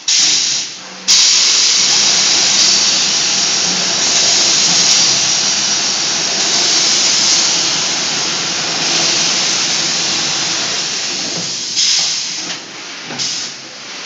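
Automatic 5-gallon bottle brush washing machine running, its water spray making a loud, steady hiss. The hiss starts suddenly, breaks off briefly about a second in, then dies down near the end with two short spurts.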